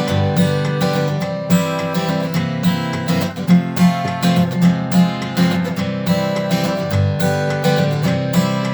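Acoustic guitar strummed in a steady rhythm, playing through the chords of a verse.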